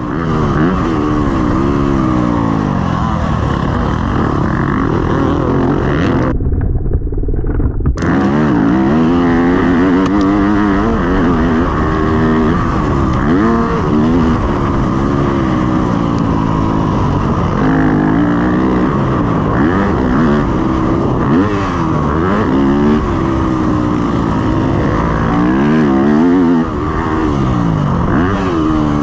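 2019 Yamaha YZ250F four-stroke single-cylinder motocross engine, heard onboard while the bike is ridden hard around a dirt track. The exhaust note revs up and falls back again and again as the rider opens and closes the throttle and shifts. The higher part of the sound drops out for about two seconds around six seconds in.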